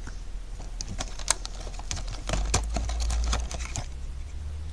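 Hands handling a clear plastic GoPro BacPac backdoor and its cardboard box: a scattered run of small clicks and taps of plastic and card, from about a second in until near the end.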